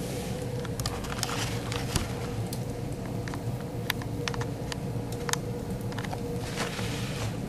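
A spinning fire tornado rig running: a steady low rumble with a faint steady hum, broken by many irregular sharp clicks and crackles.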